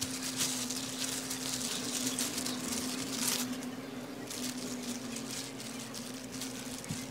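Disposable plastic gloves crinkling and rustling as hands press and spread cooked rice over a sheet of dried seaweed, with soft patting of the rice. A steady low hum runs underneath.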